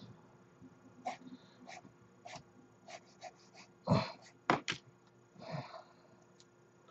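Faint, sparse clicks and taps of small plastic model-kit parts being handled and fitted, with a few louder short noises about four seconds in and again a second or so later.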